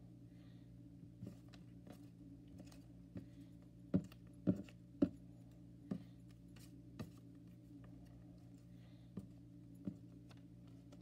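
Light taps and clicks of fingers picking up and pressing small paper hearts onto a notebook on a wooden desk, with three sharper clicks about four to five seconds in. A steady low hum runs underneath.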